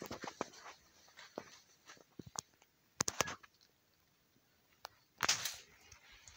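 Faint footsteps and scuffing of someone walking, with scattered soft clicks and knocks, a small cluster of clicks about three seconds in and a louder scuff about five seconds in.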